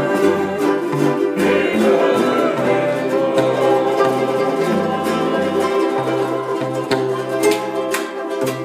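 A group of ukuleles strummed together, playing a tune with a bass line moving underneath.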